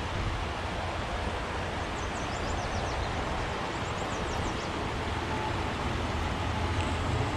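Steady rushing of a mountain river flowing over rocks, an even, unbroken wash of noise with a low rumble underneath.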